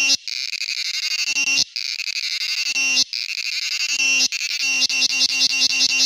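Male cicada calling, the sound made by its tymbals: a loud, high, shrill buzz broken by short breaks about every second and a half, turning into an even, rapid pulsing near the end.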